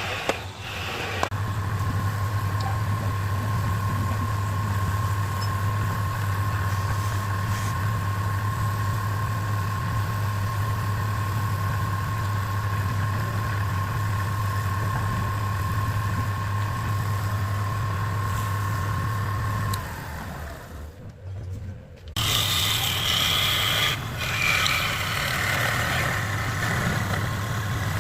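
A machine running steadily with a low hum and a thin, even whine. It cuts out for about two seconds near the end, then starts again.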